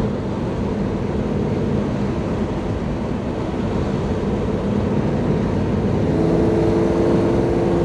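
Toyota 1UZ-FE V8 running under way, heard from inside the car with road noise. About six seconds in the engine note steps up to a higher, slightly louder steady tone as the automatic transmission's shift and lock-up behaviour are tested under throttle.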